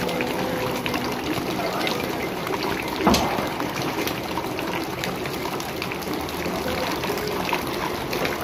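Rainwater pouring and splashing steadily, with one sharp knock or splash about three seconds in.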